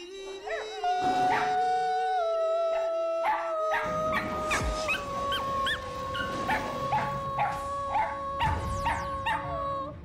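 Shetland sheepdog howling in a long, drawn-out tone that slowly falls in pitch. Music with a drumbeat comes in about four seconds in.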